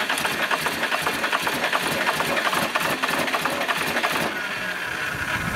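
Cummins 6BT diesel engine turning over on its starter, a rapid, even mechanical chatter, with fluid spraying out of the engine. The chatter eases about four seconds in.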